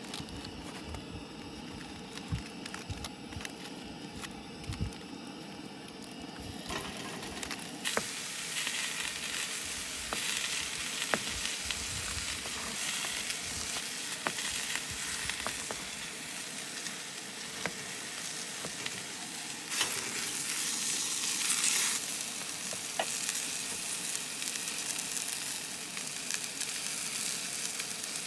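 Chicken breasts frying in butter in a stainless steel pan: a steady sizzle that turns much louder about eight seconds in, with scattered knife taps on a cutting board.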